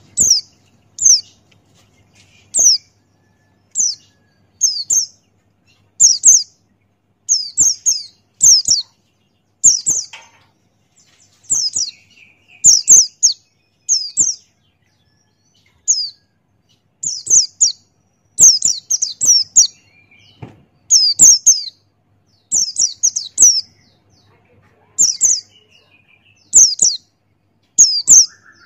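A pleci Buxtoni white-eye calling in short, high, sharp chirps that sweep down in pitch. They come in quick clusters of one to four, repeated about every second.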